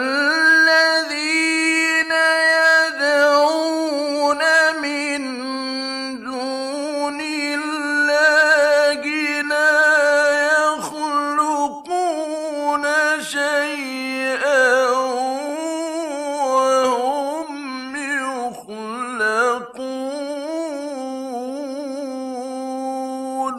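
A male Quran reciter's voice chanting in the ornamented mujawwad style, drawing a phrase out in long held notes with wavering melismatic turns and short breaths between them. This is an old 1960s Egyptian radio recording, with a faint steady high tone underneath.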